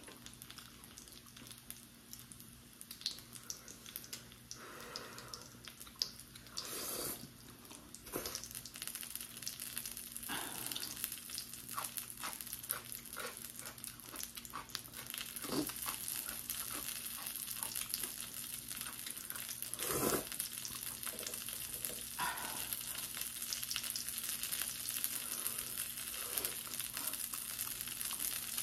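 Eating sounds: instant ramen noodles slurped and chewed, with short clicks and taps of chopsticks, over a steady hiss that grows louder partway through.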